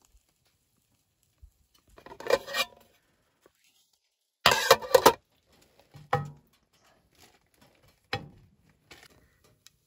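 Spatula and metal cookware clattering: a few short bouts of clinks and scrapes on a metal plate and frying pan, the loudest about halfway through, then a sharp knock near the end.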